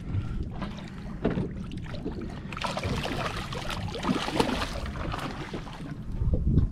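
A hooked small shark thrashing at the water's surface, splashing loudest from a few seconds in, over a steady low rumble.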